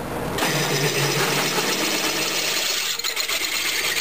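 Drill press with a 3/8-inch cobalt bit cutting into two stacked stainless steel plates: a steady metallic grinding of the bit in the metal, starting about half a second in, over the hum of the press running.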